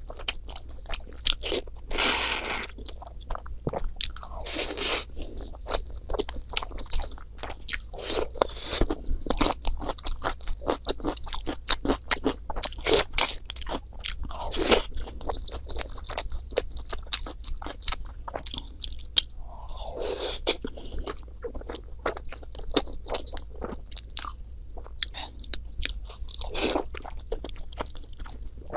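Close-miked eating: a person chewing and crunching food, with many small mouth clicks and a few louder crunchy bites.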